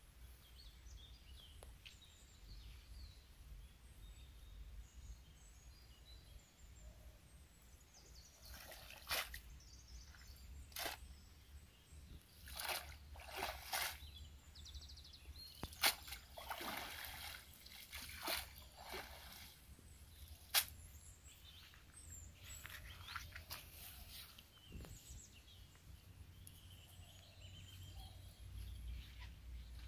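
Water sloshing, splashing and pouring off a cast net as it is hauled out of a pond, with a run of sharp splashes in the middle, while birds chirp faintly.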